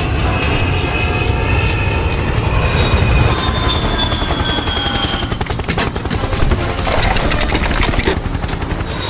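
Helicopter rotor sound effect, a steady rapid beating over a low rumble, with faint tones from music above it.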